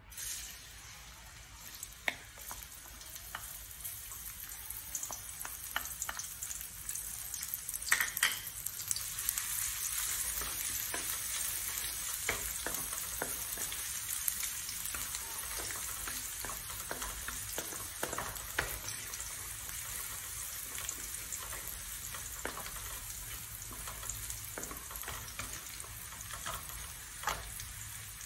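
Minced garlic, green onion and chili sizzling in hot oil in a metal wok, stirred with a wooden spatula: a steady frying hiss that swells over the first several seconds, with scattered taps and scrapes of the spatula against the pan.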